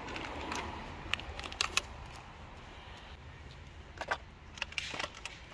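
Groceries being handled and loaded from a shopping trolley into a car boot: scattered light clicks and knocks over a low steady outdoor background.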